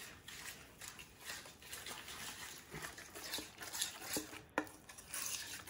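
Metal spoon stirring a thick yogurt and spice-paste marinade in a stainless steel bowl: faint, irregular soft scraping strokes, with a couple of light clicks of spoon against bowl a little past the middle.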